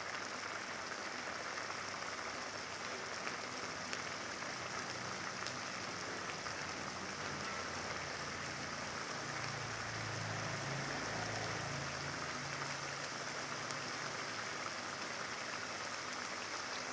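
Chili sambal frying in oil in a pan, a steady sizzle.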